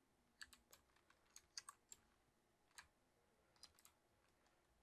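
Faint computer keyboard keystrokes: a quick run of clicks in the first two seconds, then a few scattered ones.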